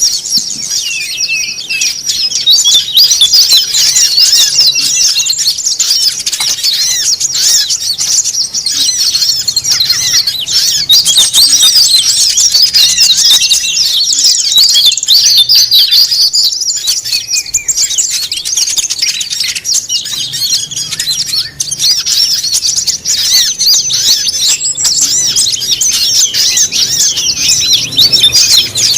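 Many small songbirds chattering and twittering at once, a dense and unbroken flurry of quick, high chirps: a 'noisy birds' lure mix used to attract wild birds.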